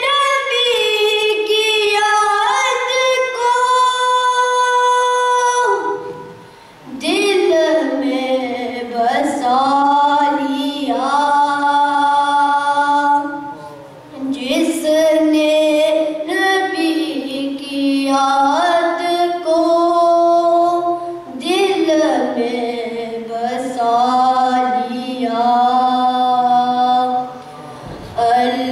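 A boy's unaccompanied voice chanting a devotional Islamic recitation into a microphone, in long held notes with ornamented turns. It pauses for breath about six seconds in, again about fourteen seconds in, and once more near the end.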